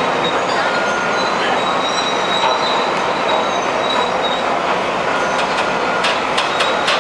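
Tracked side-boom rerailing machines handling a derailed coal hopper car: heavy machinery running with drawn-out metal squeals, and several sharp metallic clanks near the end.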